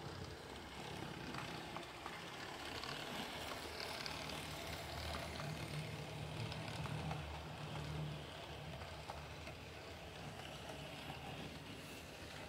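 Mehano H0-scale model train running along the track: the steady hum of its small electric motor with the wheels rolling over the rails, a little louder in the middle as it passes close.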